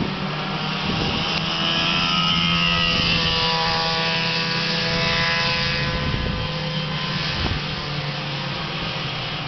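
Several racing go-kart engines running hard on the track, their pitches rising and falling as the karts accelerate and lift through the corners.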